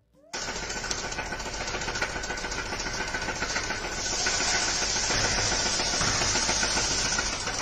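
A vehicle engine running steadily, with a hiss and a thin steady high tone over it. It starts abruptly just after the beginning, gets louder about four seconds in, and fades near the end.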